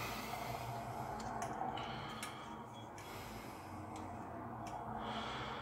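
Several faint small clicks over a soft hiss as a Gillette 7 O'Clock Super Stainless double-edge razor blade is snapped in half and handled, readying it for a shavette.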